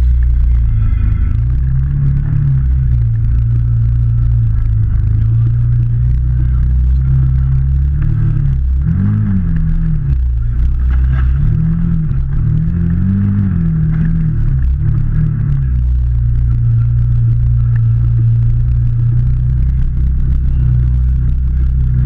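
Can-Am Maverick side-by-side's engine running under load, revving up and falling back in a run of short throttle blips through the middle, then holding a steady drone near the end.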